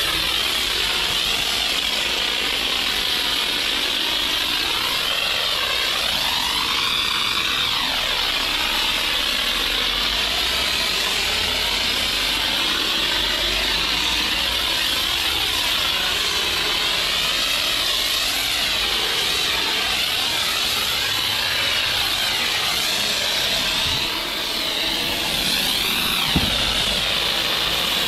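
Self-service car wash pressure lance spraying a jet of water and foam onto a wheel and tyre: a steady hiss whose tone wavers slowly as the nozzle sweeps across the surfaces. It dips briefly near the end, followed by a single click.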